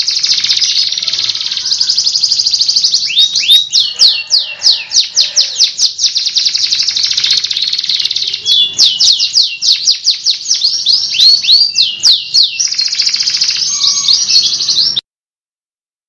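Domestic canary singing a long, continuous song of fast rolling trills and rapid repeated chirps, with quick down-slurred whistled notes among them. It cuts off suddenly near the end.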